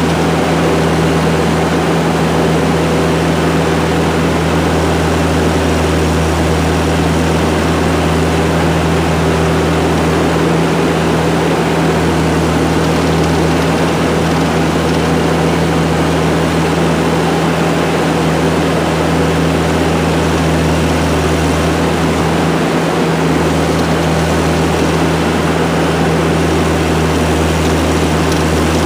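ASV compact track loader's engine running steadily under work, a loud low drone with brief slight dips twice.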